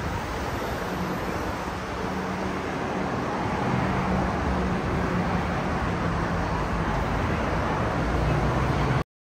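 Steady traffic noise of a busy city road, with the low hum of passing vehicles, cutting off abruptly about nine seconds in.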